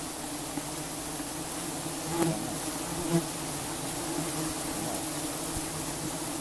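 A swarm of giant honeybees buzzing around their exposed comb as smoke drives over them: a steady droning hum that swells briefly twice, about two and three seconds in.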